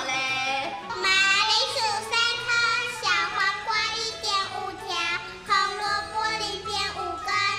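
Children's voices singing a tune over backing music, with some notes held and a bass line underneath.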